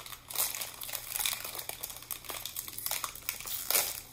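A snack wrapper crinkling in the hands as it is unwrapped, in irregular crackly bursts, the loudest near the end.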